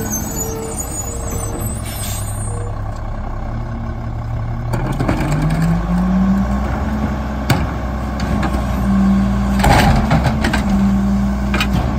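Mack MR rear-loader garbage truck's diesel engine idling, then speeding up about five seconds in and holding at the higher speed as the hydraulics run to tip a cart into the hopper. A backup alarm beeps through the first couple of seconds. Sharp knocks of the cart against the hopper follow, the loudest a little before the end.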